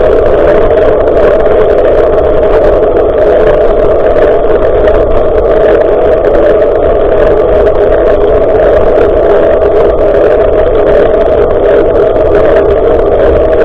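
Steady, loud rush of wind and riding vibration on a bicycle-mounted action camera's microphone, a muffled, unbroken drone while the bike is moving.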